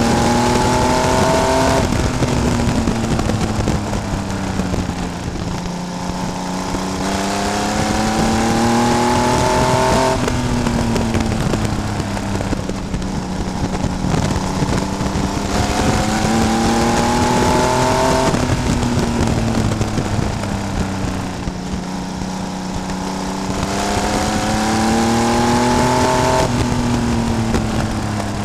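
Race car engine heard from on board while lapping a short oval. Its pitch climbs for several seconds, then drops sharply as the driver lifts for each turn, about every eight seconds, three times, over steady wind and road noise.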